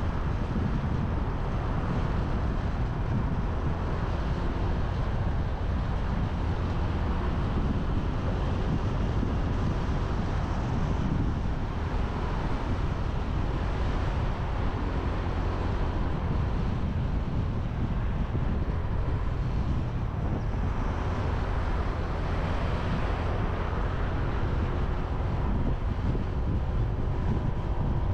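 Wind rushing over an action camera's microphone on a moving motorbike, with the motorbike's engine and tyre noise underneath; a steady low rumble that swells briefly about three-quarters through.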